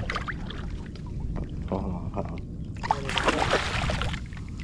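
Shallow saltwater sloshing and splashing around a wading angler and a landing net holding a freshly caught redfish. It is low and rumbling at first, then louder and hissier from about three seconds in.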